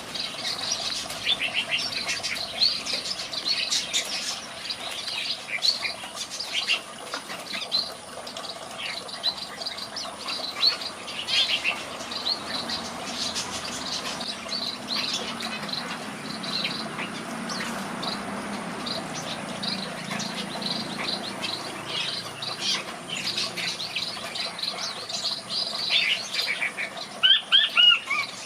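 Red-whiskered bulbuls chirping and calling: a steady stream of short, high notes, with a few louder whistled notes near the end.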